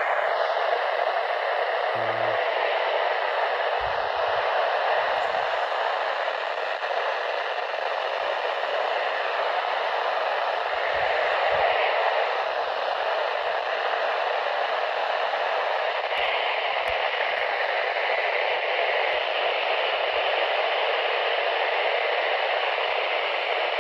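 Steady radio static from a weather radio receiver that has lost the broadcast signal: an even hiss with the warning's voice dropped out.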